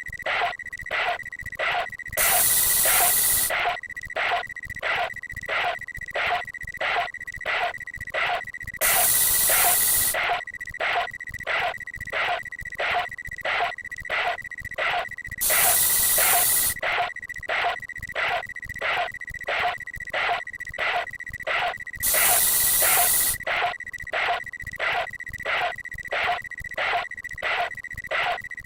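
Aerosol spray-can hiss, in four bursts about a second and a half long, roughly every six and a half seconds. Under them run a steady high tone and quick regular ticks, about two and a half a second.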